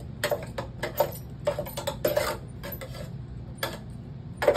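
Irregular clinks and knocks, a dozen or so, with a few short scraping handling noises about two seconds in, as dryer parts are handled during reassembly and cleaning.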